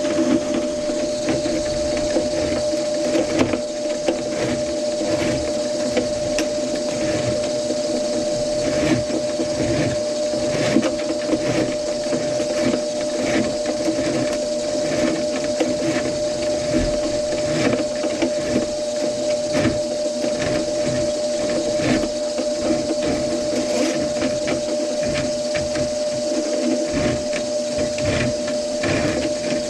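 Motor-driven drain-cleaning cable machine running steadily with a constant hum, the spinning cable clicking and rattling as it works through the clogged kitchen sink drain line.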